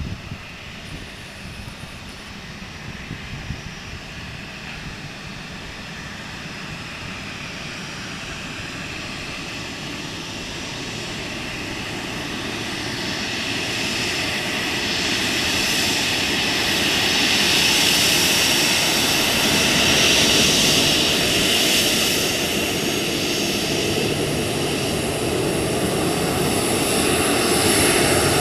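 Boeing 737-800 jet engines on landing approach, a rushing roar with a high whine that grows steadily louder for about eighteen seconds as the airliner closes in, then stays loud.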